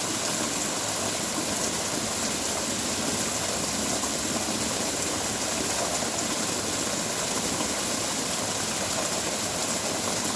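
Heavy rain falling steadily, a dense, even hiss that holds at the same level throughout.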